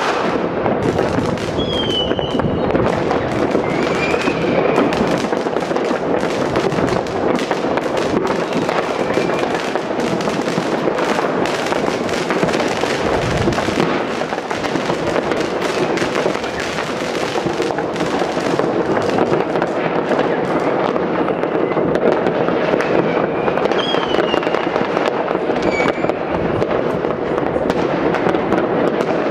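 Non-stop barrage of distant firecrackers and fireworks across a city, countless bangs and crackles overlapping with no pause. A few short whistling tones come through, near the start and again near the end.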